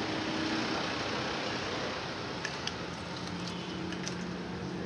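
Steady background hum and noise, with a few faint clicks from about halfway through.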